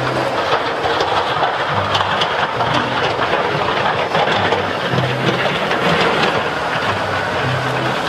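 Wheel loader with a front snow plow blade pushing snow: its diesel engine running under load beneath a steady, dense scraping rush of the blade and snow.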